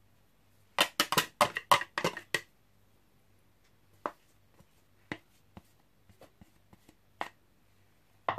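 A quick run of about eight light clicks and taps, then a few scattered single clicks: a plastic bowl and ceramic bowls being handled and set down after rice flour is poured out.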